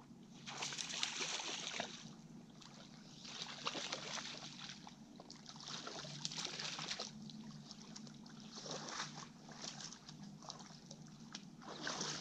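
Water splashing and sloshing in about six separate bursts of a second or so each, roughly two seconds apart.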